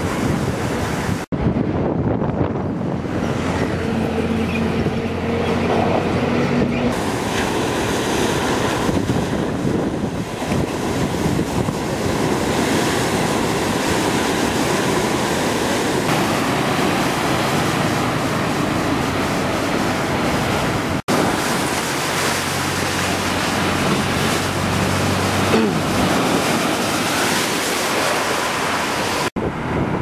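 Heavy storm-driven surf: waves crashing over a seawall and surging up the shore in a continuous rush. Wind buffets the microphone.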